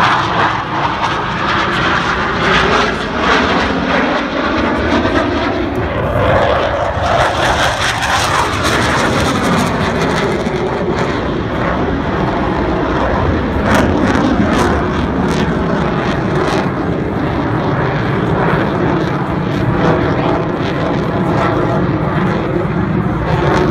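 Blue Angels F/A-18 Hornet jets flying overhead, loud continuous jet engine noise. Sweeping tones rise and fall as they pass, around six to ten seconds in.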